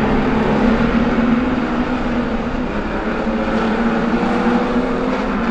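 A pack of street stock race cars running around a dirt speedway oval: their engines blend into a loud, steady drone.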